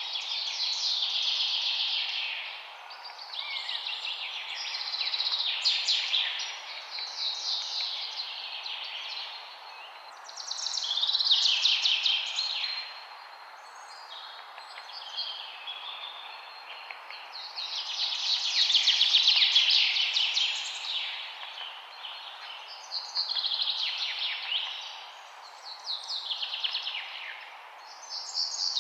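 Songbirds chirping and trilling in dense bursts of a few seconds each that swell and fade again, about six of them, over a steady background hiss.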